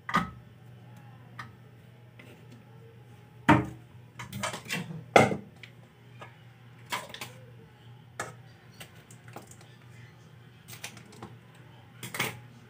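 Irregular knocks and clatter of kitchen handling: a wide aluminium pan set on a wooden chopping block, and pieces of ginger, garlic and green chilli dropped into it, the loudest knocks about three and a half and five seconds in. A faint steady low hum runs underneath.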